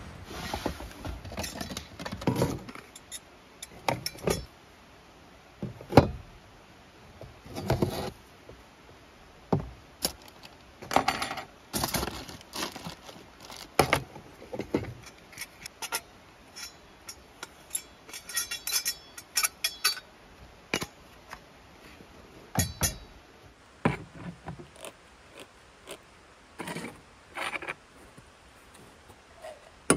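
Camp cooking gear being handled: irregular metal clinks, clanks and short scrapes as a single-burner stove top is fitted to a small propane cylinder and a can and pot are handled.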